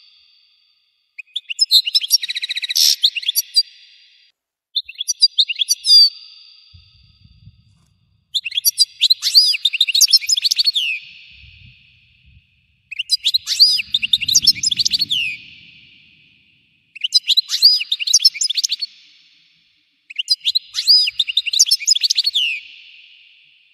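European goldfinch singing: six bursts of fast, high twittering song, each a couple of seconds long, with short pauses between them.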